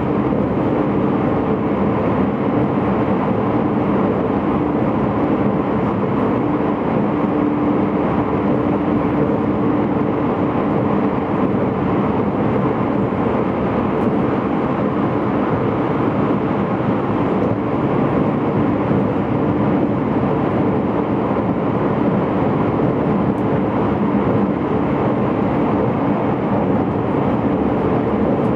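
Running noise heard inside the cabin of an E257 series electric limited express train travelling at speed through a tunnel: a steady, loud rumble with a constant low hum.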